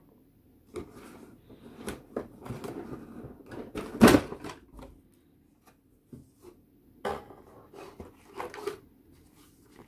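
Cardboard model-kit box being handled and its lid taken off: scraping and rustling cardboard, with one loud knock about four seconds in. Later, a few sharp knocks and rustling paper as the instruction sheet inside is handled.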